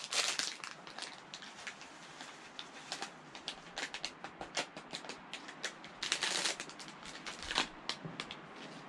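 Crinkling and rustling of a food packet being opened and emptied by hand, mixed with many small clicks and taps of camping cookware being handled. The loudest rustles come at the start and again about six seconds in.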